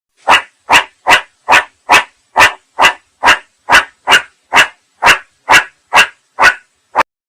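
A dog barking in a steady, even run of about sixteen short barks, a little over two a second; the last bark is cut off short.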